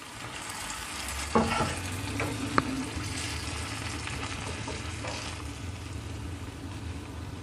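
Chicken broth poured into a hot nonstick pan of shredded spiced chicken, sizzling steadily while a silicone spatula stirs it, with a few light knocks of the spatula against the pan early on.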